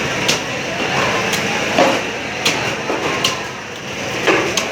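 Knife blade knocking sharply on a cutting board as a tuna is cut, about one strike a second at an uneven pace, over steady background noise.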